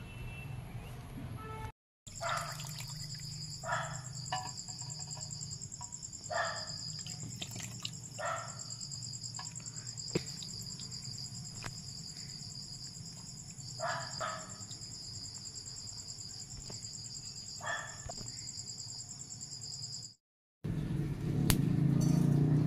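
Steady high-pitched drone of insects, like cicadas or crickets, with short bird calls every few seconds. Near the end a louder low rumble takes over.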